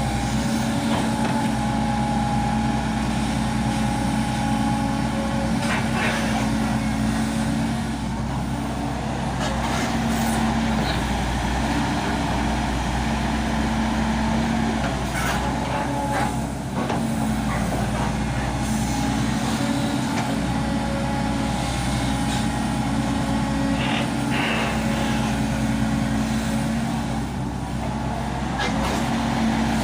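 Diesel engine of a Volvo 200 hydraulic excavator running steadily under working load, its note swelling and easing as it works, with a few short clanks along the way.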